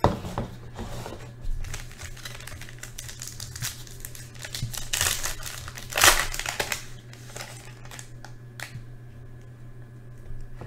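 Foil trading-card pack crinkling as it is handled and torn open, loudest about five to six and a half seconds in. A steady low hum runs underneath.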